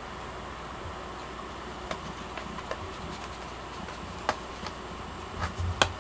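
A steady low hum with a few faint, sharp clicks, more of them close together near the end.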